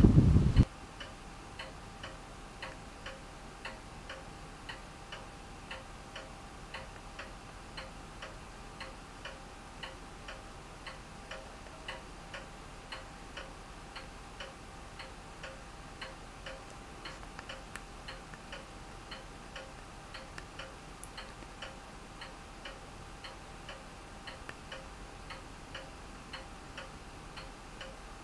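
Clock ticking steadily, about two ticks a second, with a faint steady tone under it. Just at the start, a brief rush of wind noise on the microphone cuts off.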